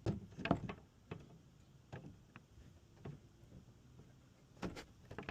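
A series of light, irregular clicks and knocks, about nine over five seconds, some in close pairs.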